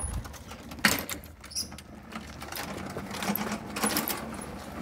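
Riding lawn mower running steadily as it is driven, with one sharp click about a second in and a few fainter ticks after it.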